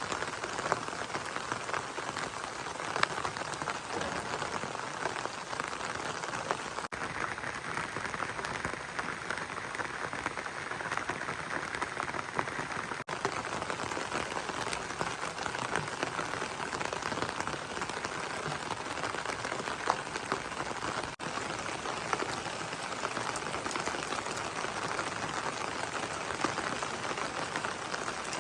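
Steady rain falling, with many small drop ticks and now and then a louder one.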